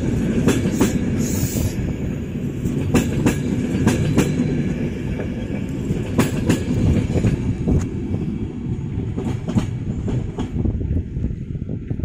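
PKP Intercity passenger coaches rolling past at the platform: a steady, heavy rumble of wheels on rail with irregular sharp wheel clicks over the rail joints. The sound thins out briefly shortly before the end as the last coach goes by.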